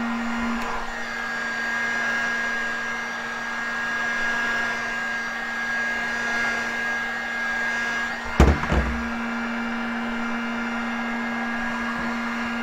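Electric heat gun running on its higher heat setting, a steady blowing hiss with a thin whine, softening 3D-printed PLA filament hair. About two-thirds of the way through there is a single thunk as the gun is set down on a wooden table, and it keeps running after that.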